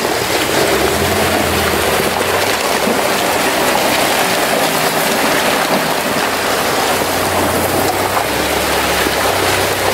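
Off-road vehicle engine running low under a steady rushing noise of muddy, icy water churned by its tyres.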